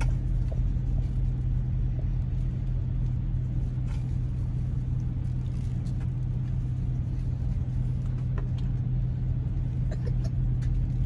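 Steady low rumble of a semi-truck's engine idling, heard from inside the cab, with a few faint light taps over it.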